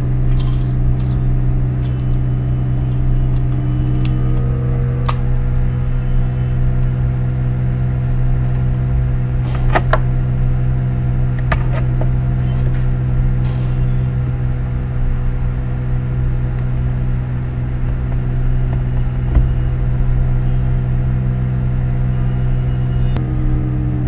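A loud, steady low hum with several steady tones above it, like an electrical or machine drone, broken by a few sharp clicks.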